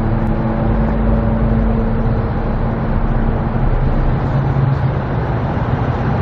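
Steady motor vehicle noise: engines running and a constant roar, with an engine hum that changes pitch slightly about four seconds in.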